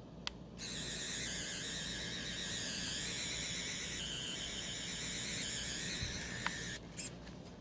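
Small filament feed motor of a 7TECH 3D pen running with a steady high-pitched whine for about six seconds as it drives filament, starting just after a short click and stopping near the end with another click.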